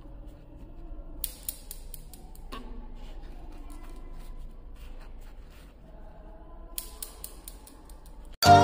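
Glass marbles of a homemade cardboard Newton's cradle clicking against one another: two quick runs of sharp ticks after an end marble is let go, with a single knock between them. Loud music cuts in near the end.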